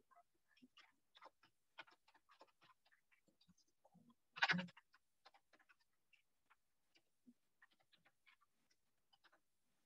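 Faint typing on a computer keyboard: a string of quiet key clicks, with one short louder sound about halfway through.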